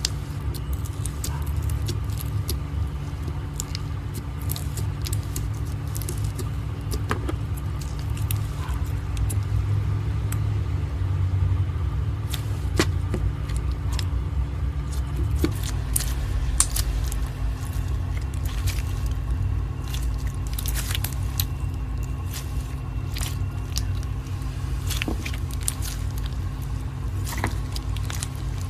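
Slime being squeezed and stretched by hand, giving many small sharp crackling pops as air bubbles burst, over a steady low rumble with a faint hum.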